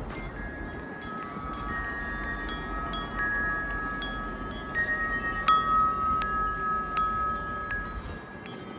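Wind chime ringing in the wind, several notes struck again and again. The ringing is busiest through the middle, with the loudest strike about five and a half seconds in, and thins out near the end.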